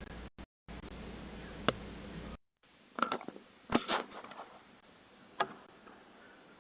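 Hiss from a doorbell camera's microphone that cuts in and out a few times, with several sharp clicks or knocks: one short click, a cluster of louder knocks in the middle, and one more click near the end.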